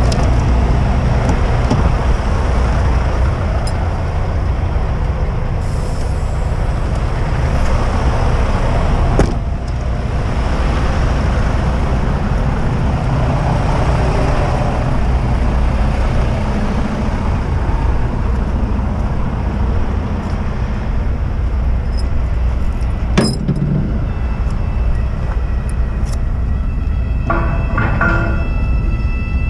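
Freightliner Cascadia semi truck standing and idling, a steady diesel rumble with noise over it. A sharp click comes about nine seconds in and another about twenty-three seconds in, and a short pitched tone sounds near the end.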